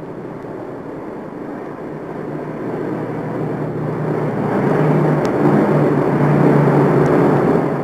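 A steady engine-like rumble that grows louder over several seconds.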